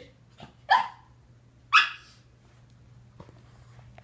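Pug giving two short, sharp barks about a second apart.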